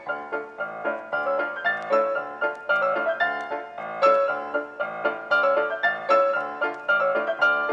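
Background music: a tune of quick, evenly paced struck notes.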